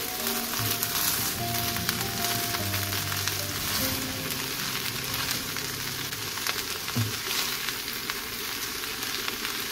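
Julienned potatoes sizzling in oil in a non-stick frying pan as they are stirred with a wooden spatula: a steady crackling sizzle. Soft background music with held notes sits underneath in the first half.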